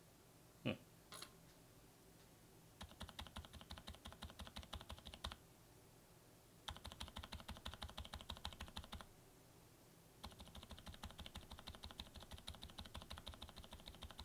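Typing sound test on a mechanical keyboard fitted with lubed frankenswitches: Kailh BOX Silent Pink housings with BOX Cream stems, in an aluminium plate with a tape mod, under ABS keycaps. A couple of single key clicks, then three runs of rapid typing of a few seconds each, separated by short pauses.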